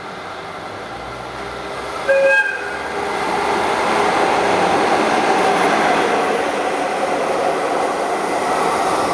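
JR Freight EF66 electric locomotive running light without wagons: a short blast on its horn about two seconds in, then the noise of the locomotive passing through the station, rising and staying loud.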